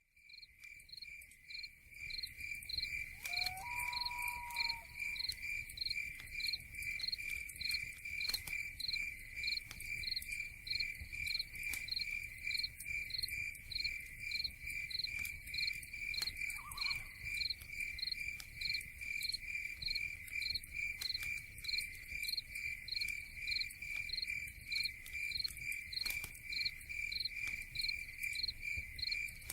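Chorus of crickets chirping in a steady, even pulsing rhythm, fading in over the first couple of seconds. A single short whistled note sounds faintly about four seconds in.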